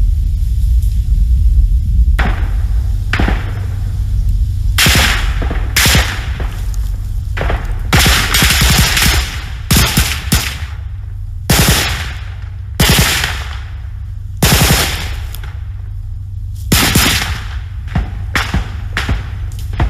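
Small-arms gunfire: repeated shots and bursts of automatic fire, the longest burst about eight seconds in, over a steady low rumble.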